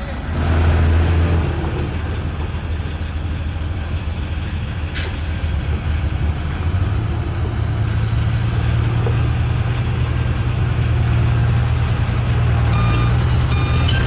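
Loaded dump truck's diesel engine running as it drives off with a load of rock, the low engine note growing stronger from about seven seconds in, with a brief hiss about five seconds in. Near the end a reversing alarm starts beeping about twice a second.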